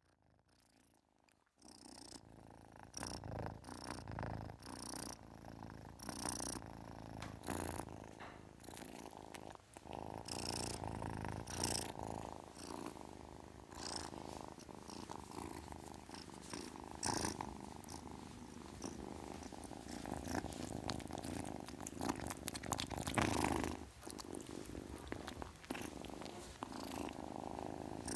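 Kitten purring, a continuous low pulsing purr close to the microphone, starting about a second and a half in.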